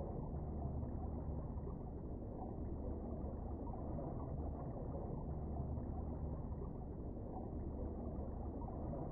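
Steady, muffled low rumble of water picked up by an underwater camera, with nothing higher than a dull murmur coming through.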